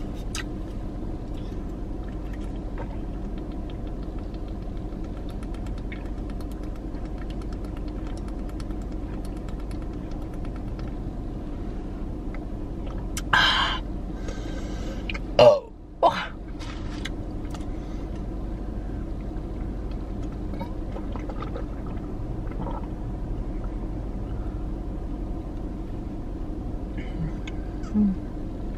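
Steady low hum of a car idling, heard from inside the cabin. A few short, loud noises come about halfway through, and a brief one near the end.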